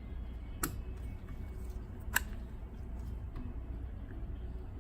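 Two sharp, light clicks about a second and a half apart, from handling the loosened iMac front glass and the suction cup, over a low steady hum.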